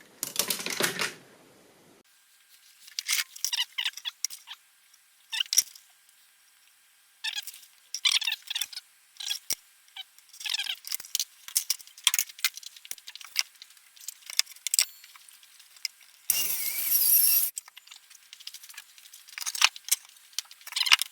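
A scattered series of light clicks and clatters of small hard objects being handled, some with a brief ring, and a short rushing noise about sixteen seconds in.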